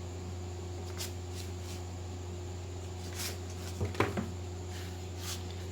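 Steady low hum, with a few faint scratchy strokes and a soft knock about four seconds in: a ruler and marker being worked on cloth to draw a straight line.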